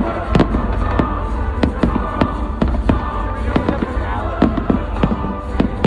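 Aerial fireworks bursting in quick succession: many sharp bangs and crackles, several a second, over a steady low rumble, with show music playing underneath.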